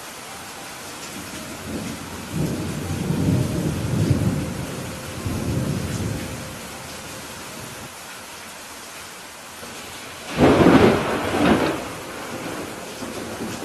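Steady rain with thunder: a low rolling rumble starting about two seconds in and lasting about four seconds, then a sudden, loud, sharp thunderclap about ten seconds in.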